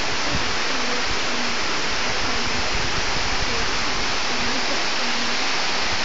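Waterfall of many strands pouring down a cliff and over a stepped ledge into a pool: a steady, dense rush of falling water.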